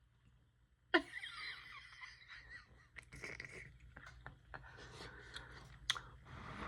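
Quiet, breathy laughter from a person, starting suddenly about a second in and going on in uneven bursts, with a few sharp clicks among it.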